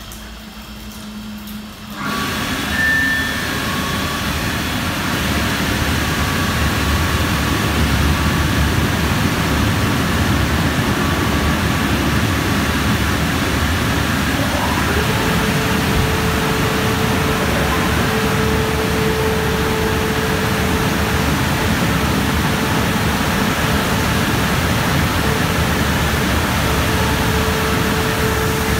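Christ Genius Vitesse rollover car wash starting up about two seconds in and running with a loud, steady rushing noise as the gantry travels along the car. A steady hum joins about halfway through.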